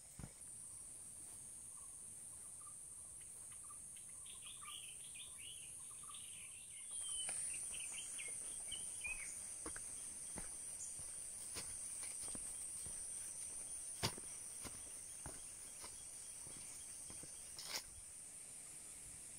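Tropical forest insects keep up a steady high-pitched drone that grows louder about a third of the way in. A bird chirps a quick series of notes over the first half, and scattered footsteps crunch on the dirt trail, two of them sharper near the end.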